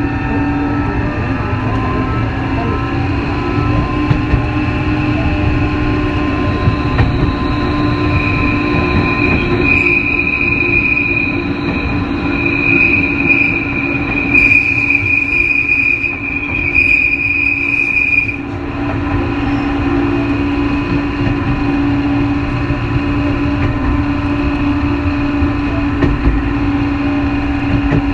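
Tokyo Metro 03 series chopper-controlled electric train running, heard from inside motor car Moha 03-212: wheel-and-rail rumble under a steady electrical hum whose pitch rises over the first few seconds. A high, shrill wheel squeal sets in about eight seconds in and stops about ten seconds later.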